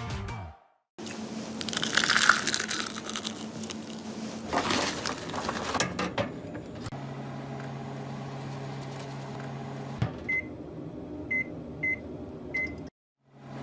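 Microwave oven running with a steady low hum, and four short high beeps near the end. The first few seconds hold noisy rustling and handling sounds.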